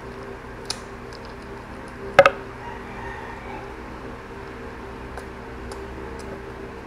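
A person eating with bare hands close to the microphone: chewing with wet mouth clicks and smacks, the loudest a sharp double smack about two seconds in, over a faint steady hum.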